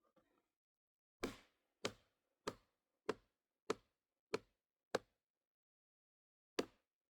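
Regular blows of a tool striking into a log being hollowed out, about one every 0.6 seconds: seven in a row, a pause, then the strikes start again near the end.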